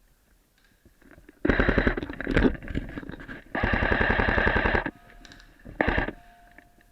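Airsoft gun firing on full auto in three bursts of rapid, evenly spaced shots: a first burst about a second and a half in, a longer one in the middle and a short one near the end.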